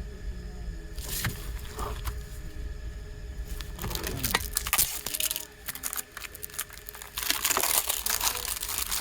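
Packaging crinkling and rustling as a CD+DVD is unboxed by hand, in irregular bursts. The loudest bursts come near the end.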